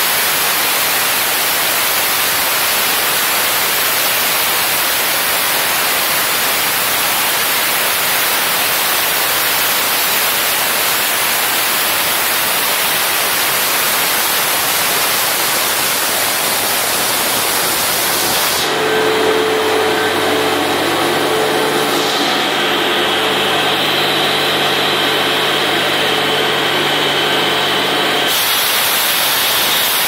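Walk-behind concrete floor saw cutting wet concrete: a loud, steady noise of its engine and diamond blade. For about ten seconds past the middle, the hiss drops back and the engine's hum stands out.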